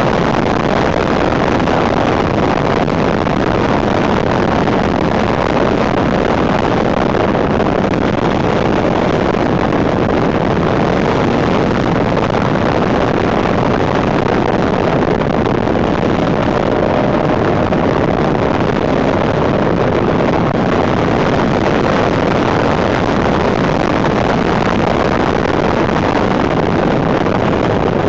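Steady wind noise buffeting the microphone of a handlebar-mounted camera, over the inline-four engine of a 1991 Suzuki GSX750F Katana motorcycle running at road speed.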